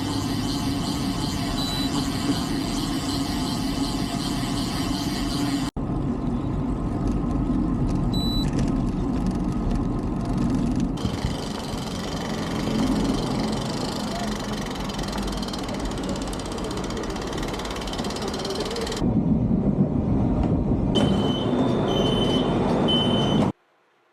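Steady wind and road noise from a moving bicycle, picked up by a camera clamped to the handlebars, broken by several abrupt cuts. A few short high beeps sound near the end, then the sound cuts to near silence.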